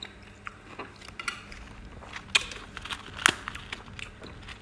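Close-miked eating sounds: chewing, with scattered sharp crackles and clicks as a crispy piece of fried food is broken apart by hand, two louder cracks in the second half.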